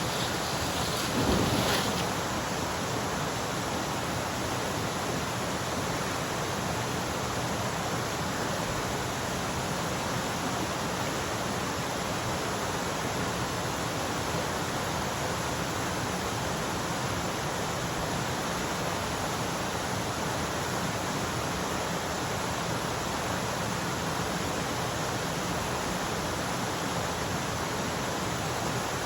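Stream water rushing steadily, with a brief louder sound about a second in.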